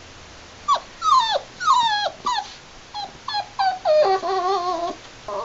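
Labrador puppy whimpering and crying: a string of short whimpers that fall in pitch, then a longer, steadier whine about four seconds in.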